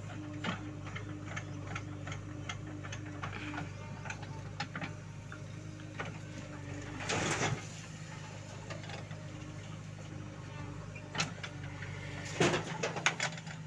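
JCB 3DX backhoe loader's diesel engine running steadily while the backhoe arm works. About seven seconds in there is a short rush of soil pouring from the bucket into a trolley, and there are knocks and clatters near the end.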